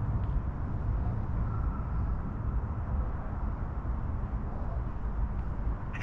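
Steady low outdoor background rumble, with a faint thin tone lasting about a second, starting about a second and a half in.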